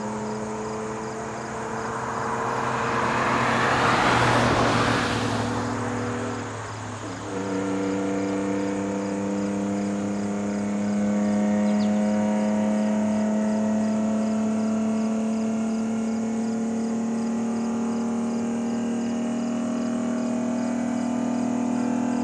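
Detroit Diesel 6-71 two-stroke diesel in a 1979 GMC Brigadier, running with open exhaust and pulling under load. About seven seconds in its note breaks off and comes back lower as it shifts up a gear, then climbs slowly and steadily through the next gear. A rushing noise swells and fades around four seconds in.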